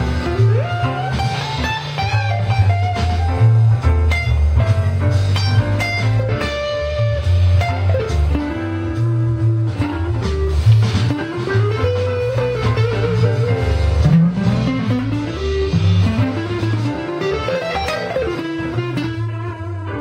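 Electric guitar, a Fender Stratocaster, playing a blues-flavoured lead line with string bends and vibrato over a backing track with a steady bass line. The longest bent note wavers in a wide vibrato about halfway through.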